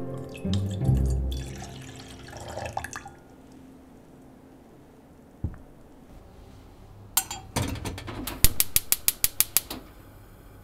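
Liquid poured from a small glass bottle into an enamel saucepan, trickling for the first few seconds. Later the pan clanks, and then a gas hob's igniter clicks rapidly, about seven clicks a second, for just over a second.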